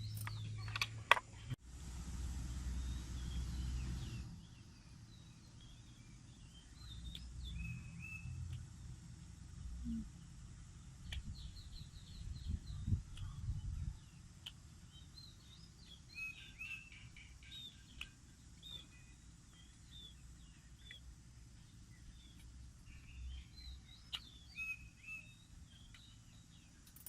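Small birds chirping and calling in short, scattered bursts, over a low rumble that is loudest in the first few seconds and fades out about halfway through.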